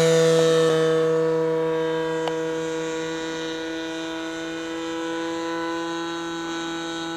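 Engine and propeller of a radio-controlled scale model PT-19 airplane climbing out just after takeoff: a steady drone that dips slightly in pitch in the first second, then slowly fades as the plane flies away.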